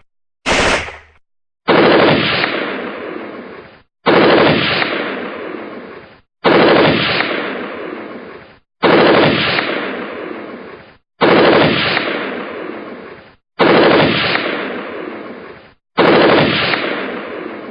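Gunfire sound effect: a single short shot just at the start, then the same loud burst of machine-gun fire played seven times over, about every two and a quarter seconds. Each burst starts suddenly and dies away over about two seconds.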